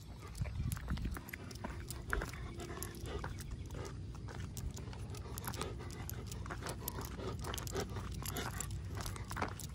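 German Shepherd walking on asphalt, its claws clicking on the pavement in a quick, uneven patter, with the dog panting.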